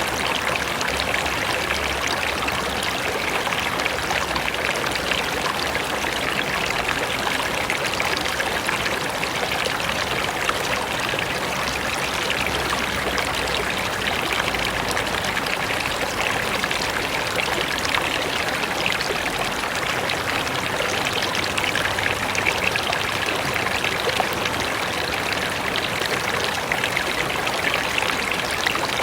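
Mountain river running: a steady rush of flowing water with fine splashing.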